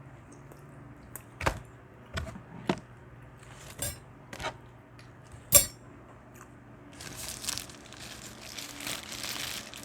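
A handful of sharp knocks and clinks from handling food containers, about six over the first six seconds, the loudest near the middle. Then, from about seven seconds in, steady crinkling of paper fast-food packaging.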